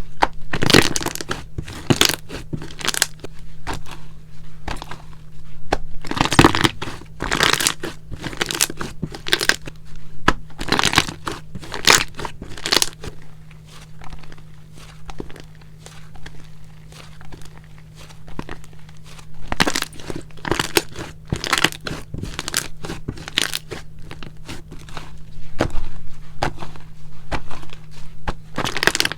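Hands squishing, stretching and folding Elmer's glue slime, giving irregular runs of crackling, popping squelches with short pauses between. A steady low hum runs underneath.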